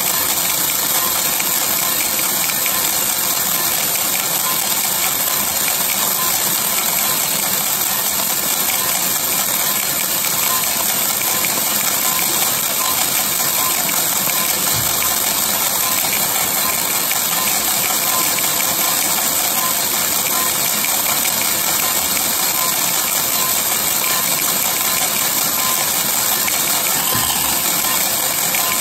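3 kg Mill City drum coffee roaster running with a 1 kg batch of green coffee beans tumbling in its turning drum: a steady hissing rattle of beans over the machine's running noise, with a faint tick about once a second.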